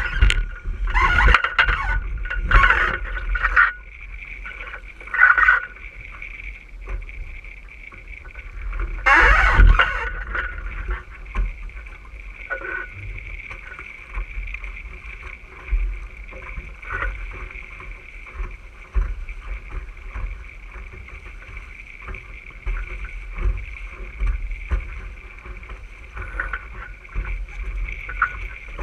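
Water rushing and splashing along the hull of an RS600 dinghy sailing at speed, with wind buffeting the microphone. Heavier splashes come in the first few seconds and again about nine seconds in. A steady high whine runs underneath.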